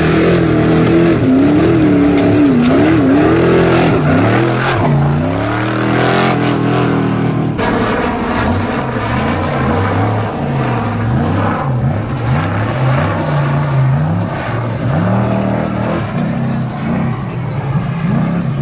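Off-road race truck engines revving hard, the pitch rising and falling over and over. A cut about seven and a half seconds in brings a second stretch of the same uneven revving.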